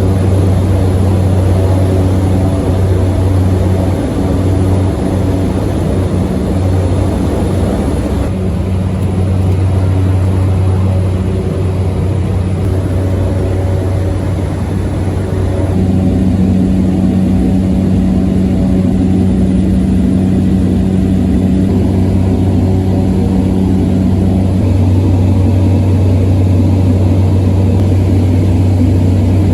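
Small propeller plane's engines droning steadily, with a deep low hum; the tone of the drone shifts abruptly about 8 and 16 seconds in.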